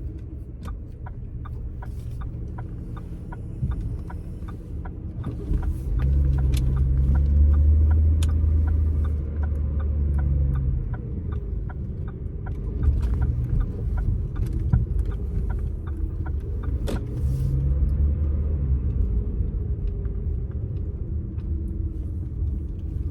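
Car engine and road rumble heard from inside the cabin while driving slowly, swelling louder twice as the car speeds up, with a faint regular ticking over it.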